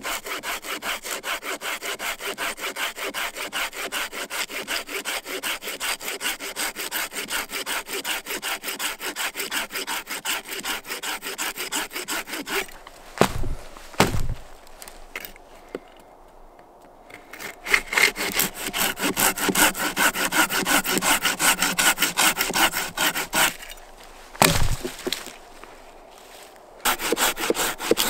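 Small hand saw cutting through a dead log in quick, even strokes, about four a second. It stops a little under halfway for two heavy thumps as a boot stomps the log to snap it, and again near the end for another thump, with sawing in between.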